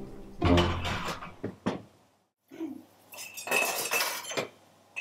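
Cello music fading out over the first second or so, then, after an abrupt cut, kitchen utensils clinking against cookware, several sharp metallic clinks with a ringing tone and one more clink near the end.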